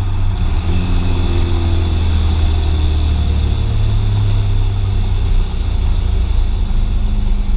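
Engine of a 1983 Fox-body Mustang drag car running at steady low revs while the car rolls along, heard from inside the cabin as a loud, even low drone.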